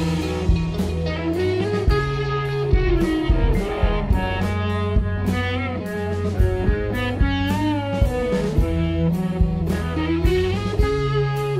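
Psychedelic garage-rock band recording: electric guitar lines with bending notes over a sustained bass and a steadily played drum kit.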